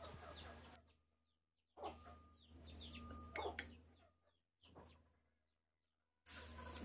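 Birds chirping in short falling calls, over a steady high insect buzz that stops after the first second and returns near the end. Stretches of dead silence break the sound up in between.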